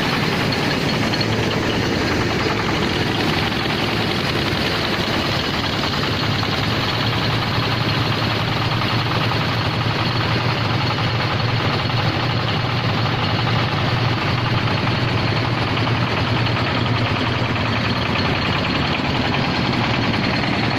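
Mobile rice mill running steadily: its Jiangfa 24 hp single-cylinder diesel engine drives the rice husker and polisher with an even, unbroken machine noise.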